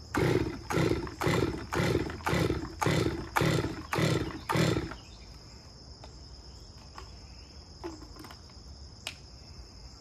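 Stihl MS200T top-handle two-stroke chainsaw being cold-started on choke: about nine quick pulls of the starter rope in the first five seconds, without the engine catching. Crickets chirp steadily in the background, with a few light clicks later.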